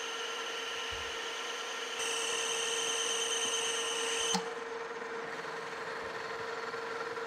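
Metal lathe turning a shaft while the cutting tool takes a deep roughing pass of about a hundred thousandths: a steady machine whine with cutting noise. A higher whine comes in about two seconds in and cuts off with a click about four seconds in.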